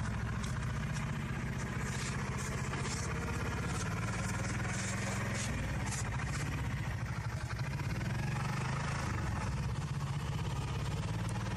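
A small mechanism running steadily with a low, rapidly pulsing hum, with scattered light clicks and rattles through roughly the first half.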